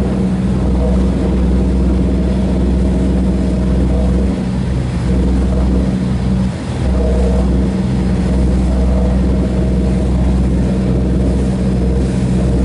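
Passenger ferry's engine droning steadily, with the rush of its wake alongside, dipping briefly twice a little before the middle.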